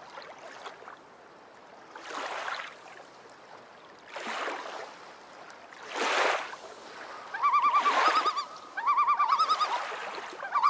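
Small waves lapping against a rocky shore in soft swells about every two seconds. From about seven seconds in, a bird gives several loud runs of rapid, quavering calls.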